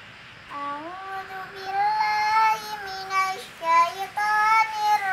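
A young girl's voice reciting the Quran in Arabic in the melodic tilawah style, beginning about half a second in with long held notes that slide and ornament between pitches. A faint steady hiss lies underneath.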